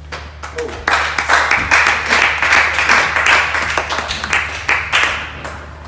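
A small audience clapping. A few claps come first, the applause fills out about a second in, then dies away shortly before the end.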